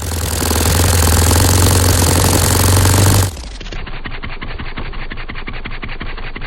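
Saito FA-120S four-stroke model aircraft glow engine running at high revs, then about three seconds in abruptly dropping to a quieter, slower, even firing beat at idle.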